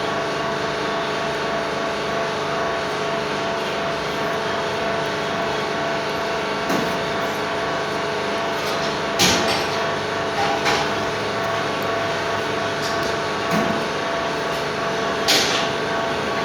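Steady machine-like running noise with a constant hum, broken by a few sharp knocks or clicks.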